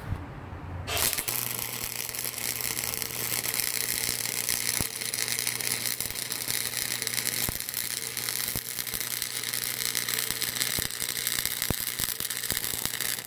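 Harbor Freight flux-core wire-feed welder running a bead on 2.5-inch mild steel exhaust pipe: the arc gives a dense, steady crackle with a low hum under it. It starts about a second in and cuts off sharply at the end. The weld is bridging a large gap in the pipe, and it burns through.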